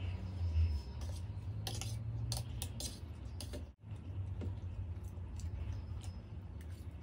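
Metal fork clicking and scraping against a steel plate while instant noodles are twirled up for eating, with a cluster of sharp clicks about two seconds in. A steady low hum runs underneath.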